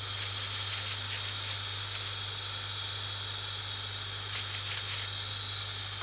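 Vacuum cleaner used as a blower: its motor running steadily with a low hum and a steady hiss of air from the hose's metal nozzle, cutting off right at the end.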